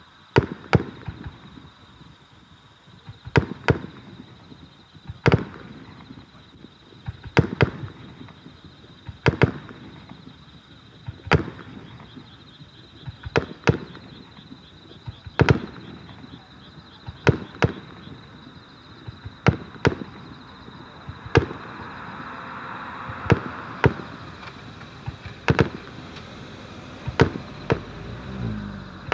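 Aerial fireworks shells bursting, about twenty sharp bangs spaced one to two seconds apart, some in close pairs.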